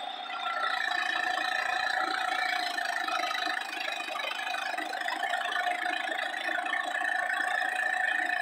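Garden tractor engine running steadily under load while its front-mounted snowblower throws snow. A steady whine sits over a rough, grainy churn and gets louder about a second in.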